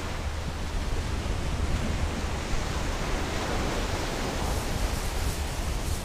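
Steady sea surf washing onto a pebble beach, with wind rumbling on the microphone.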